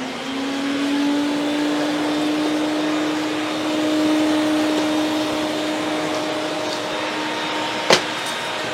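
Sirena water-filtration vacuum running with its powered beater brush head, a steady motor whine that rises slightly in pitch over the first second as it comes up to speed, drawing up debris from a rug. A single sharp click sounds near the end.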